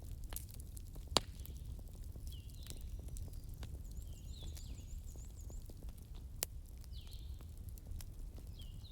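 Bonfire crackling with a steady low rumble and scattered sharp pops, the loudest a little over a second in and another about six seconds in. Short chirping calls of small birds come and go in the background.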